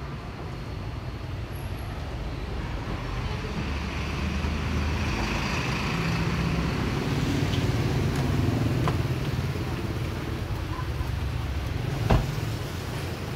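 Street traffic, with a bus's engine passing close by: a low rumble that swells to a peak and then fades. A single sharp knock near the end.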